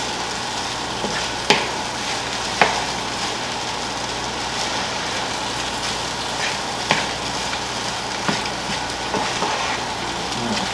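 Fried rice with vegetables sizzling steadily in a nonstick skillet while it is stirred with a wooden spatula, with a handful of sharp knocks of the spatula against the pan.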